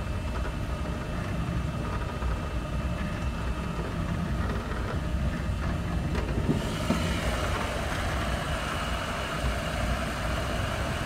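Mod-T desktop 3D printer printing, a steady low mechanical hum and whir. About six seconds in the sound turns brighter and louder in the higher range as the printer runs with its clear plastic cover removed.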